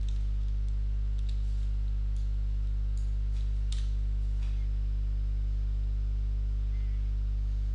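Steady low electrical hum with a stack of overtones, with about eight light clicks scattered through the first half.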